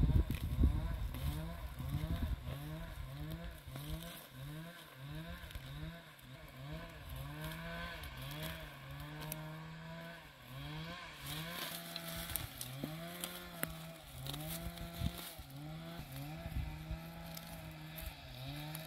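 A small engine running with its pitch swelling up and dropping back about once a second, over and over, as if under pulsing throttle or load.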